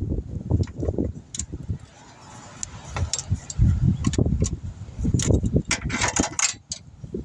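Hand work on a car's AC line fittings: sharp metallic clinks and rattles of tools and fittings over muffled knocks and bumps, with a quick flurry of clinks about five to six seconds in.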